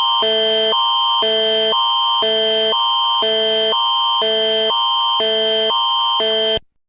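Canadian Alert Ready (National Public Alerting System) attention signal. Two electronic chords, one higher and one lower, alternate about twice a second over a steady high tone, and the signal cuts off shortly before the end.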